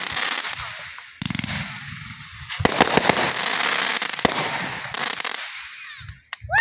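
Fireworks hissing and crackling: a dense spray of sparks with sharp pops scattered through it. A fresh burst starts about a second in, and the hiss dies away near the end.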